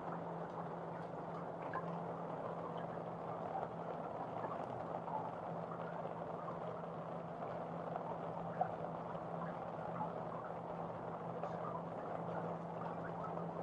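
Steady rain falling, with scattered small drips and taps, over a constant low hum.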